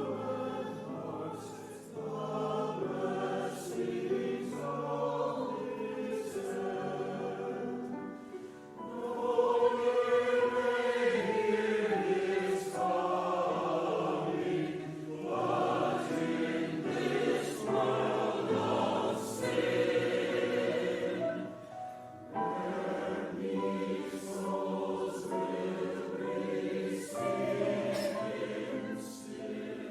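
Church choir singing a Christmas choral piece, growing louder about nine seconds in.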